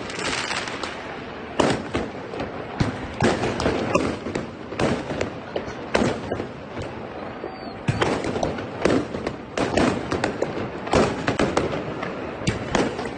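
Fireworks going off: a dense, irregular run of bangs and crackles, with louder bangs standing out every couple of seconds.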